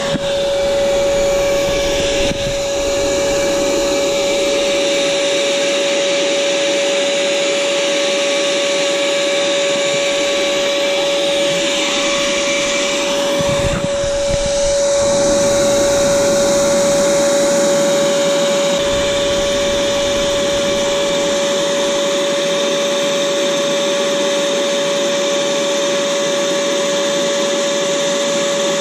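Shop-style vacuum cleaner running steadily with a constant whine, supplying the suction for a homemade vacuum fluid extractor that draws engine oil from a generator's dipstick hole into a jar.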